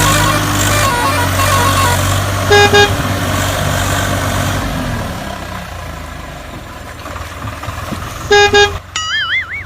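Truck engine running steadily and fading away, with two short loud horn honks about six seconds apart. A wobbling, rising whistle-like tone sounds near the end.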